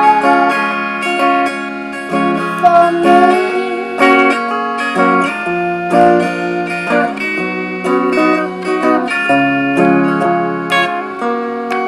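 Guitar music: plucked notes and chords, with a few notes sliding in pitch.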